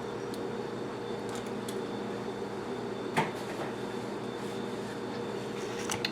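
A steady low hum, with a single sharp click about three seconds in.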